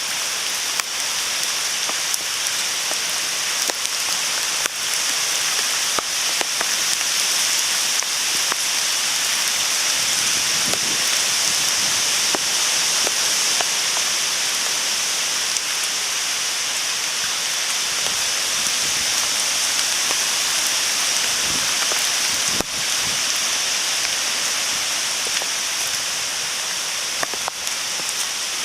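Steady typhoon rain falling, with scattered ticks of individual drops hitting a nearby surface.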